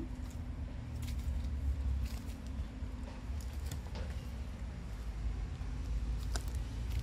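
Soft, irregular footsteps of someone walking a path, heard as short light clicks about once a second over a steady low rumble.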